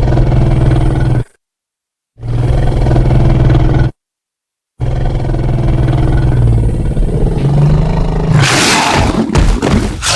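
Kaiju roar sound effects: three separate deep roars cut apart by dead silence, the third one long. Near the end the roar breaks into a harsh, hissing noise.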